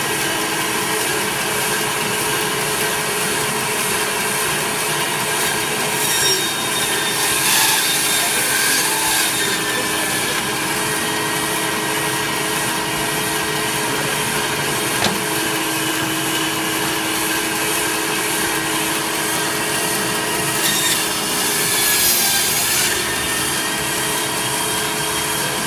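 Electric meat band saw running steadily, its blade cutting through beef shank and bone into thick cross-section slices. There are two louder stretches of cutting, about seven seconds in and again about twenty-one seconds in.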